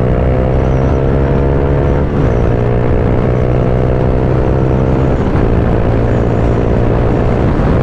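Honda X-Blade's single-cylinder engine through an aftermarket exhaust, pulling hard under acceleration. Its note climbs steadily and dips briefly at two gear changes, about two and five seconds in.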